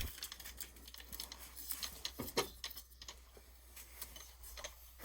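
Faint scattered clicks and light taps, the brightest about two seconds in, over a low steady hum.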